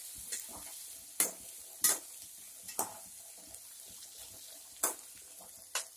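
Small onions sizzling as they fry in hot gingelly (sesame) oil with mustard seeds and dried chillies, a steady frying hiss while they are stirred, with about six sharp, irregular clicks of the spoon against the pan.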